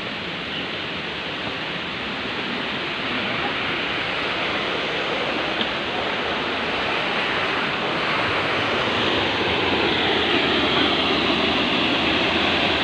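Waterfall: a steady rush of falling water that grows gradually louder.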